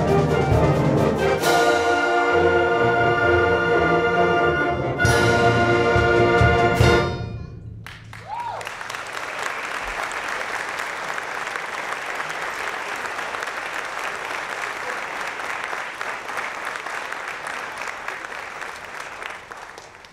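A junior honor concert band plays the closing bars of a piece: held brass-led chords building to a loud final chord that cuts off sharply about seven seconds in. Audience applause follows and runs on, fading near the end.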